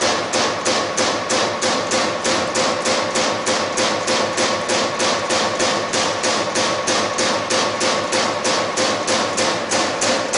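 1996 Strippit 1250XP/20 CNC turret punch punching sheet metal in a steady, even rhythm of about three hits a second, with a steady hum underneath.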